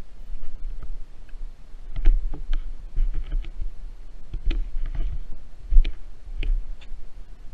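Footsteps on concrete while walking, with irregular clicks and knocks roughly two a second, and low thumps from a body-worn camera jostling with each step.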